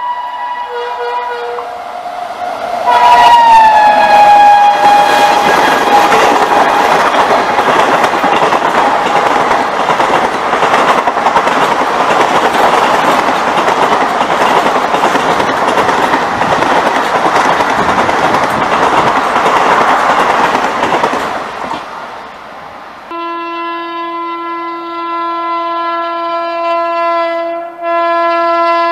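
An Indian Railways express train blows its multi-tone horn as it approaches. The horn drops in pitch as the locomotive passes about three seconds in, and the coaches then rush past at high speed for some twenty seconds. After that, another approaching train sounds a long steady horn, broken briefly near the end.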